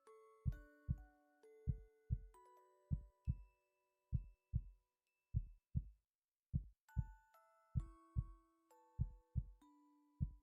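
A person's heartbeat picked up close to the chest: a slow, steady rhythm of paired lub-dub thumps, about one pair a second. A soft chiming melody plays over it.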